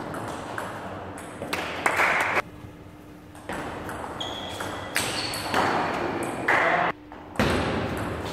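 Table tennis rally: the ball clicking off the bats and the table, back and forth, echoing in a large hall.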